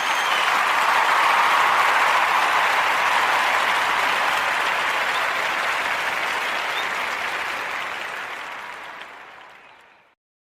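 Crowd applauding, swelling at the start and fading out gradually until it stops near the end.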